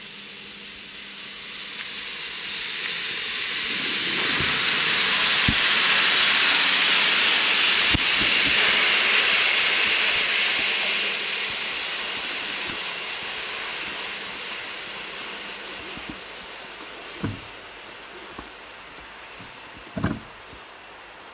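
A train rolling past close by: a rush of wheel and running noise swells to a peak and then fades away, with a few sharp knocks from the wheels over the track, the last two near the end.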